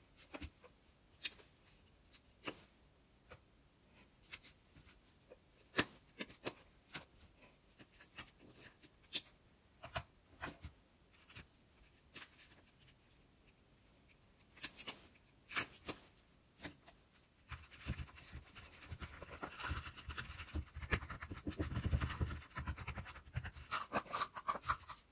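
Small scattered clicks and taps as plastic paint tubes are handled and squeezed into a clear plastic bowl. From about 17 seconds in comes a steadier scraping and squishing as a metal spoon stirs the thick paint around the bowl.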